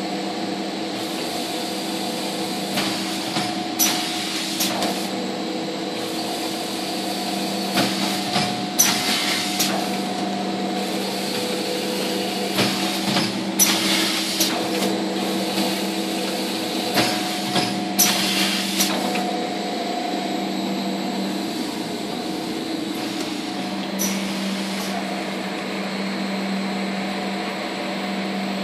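Roll-wrapping packaging machine running with a steady motor hum of several tones, broken every few seconds by brief clattering bursts from its working parts.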